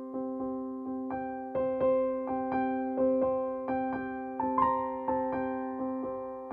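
Background music: a soft piano melody, its notes struck at an even pace of about two a second over held chords.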